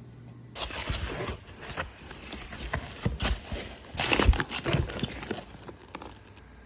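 Irregular knocks and clattering mixed with rustling, loudest about four seconds in and dying away near the end.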